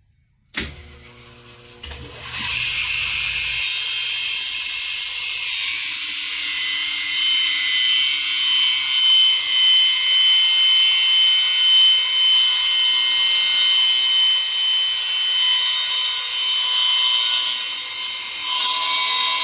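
A woodworking power tool starts about two seconds in, just after a sharp knock, and runs steadily with a loud, high-pitched whine.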